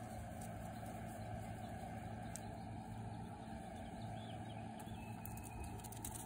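A steady low motor hum, like an engine idling, with a few faint ticks near the end.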